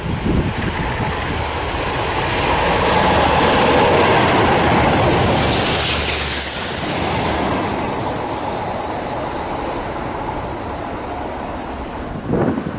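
Class 37 diesel-electric locomotive passing close by, hauling tank wagons. The engine's rumble builds to its loudest as the locomotive goes by about five seconds in, with a rush of hiss. The rolling noise of the wagons then follows and fades as the train moves away.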